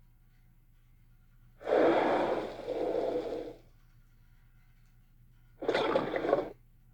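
Dinosaur sound effects: two breathy, hissing calls. The first lasts about two seconds in two swells, the first louder; the second is shorter, about four seconds later.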